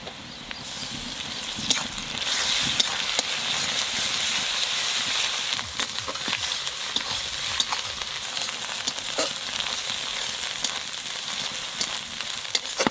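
Onions and freshly added ginger-garlic paste sizzling in oil in a kadai while a spatula stirs and scrapes the pan, with short clicks from the spatula against the metal. The paste is being fried until its raw smell goes. The sizzle grows louder about two seconds in.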